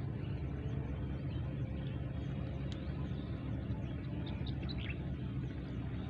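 A steady low engine drone, with a few faint bird chirps about halfway through and near the end.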